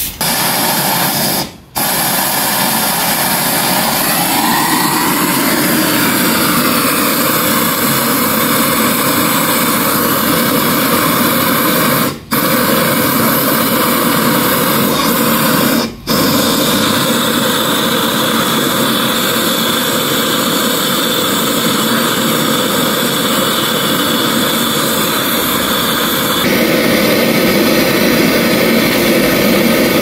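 Gas torch flame burning as a loud, steady rushing noise while it heats the copper refrigerant lines at a refrigerator compressor to unsolder them. It cuts out very briefly three times and gets a little louder near the end.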